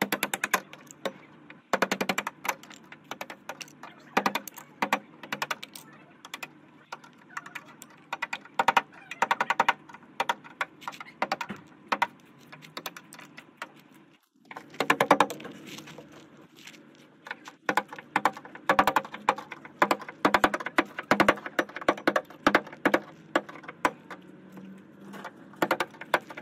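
Rapid, irregular crisp clicks and crackles of brittle, rust-lifted paint cracking and flaking off a rusted steel car door as it is pried up with a screwdriver tip. The clicking stops briefly about halfway through, then resumes just as densely.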